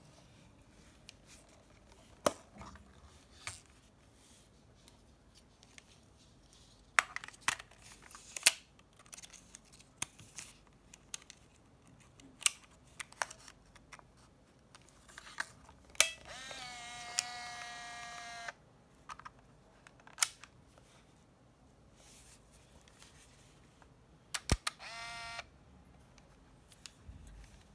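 Olympus Trip AF 51 compact 35mm film camera being loaded: scattered clicks and taps of the back door and the film being handled, then a sharp click and the built-in motor whirring for about two and a half seconds, rising in pitch then steady, as it auto-winds the film. Near the end come another sharp click and a shorter motor whir.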